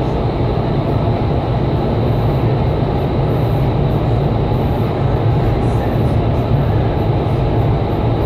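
Indoor skydiving vertical wind tunnel running at flying speed: a steady, loud rush of air from its fans, strongest low down, with a thin high steady whine.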